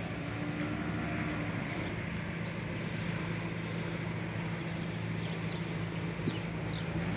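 Steady low machine hum with a few faint high chirps from small birds.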